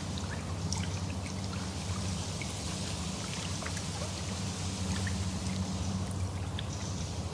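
Small waves lapping at a lakeshore: a steady wash of water with many small splashes and drips scattered through it.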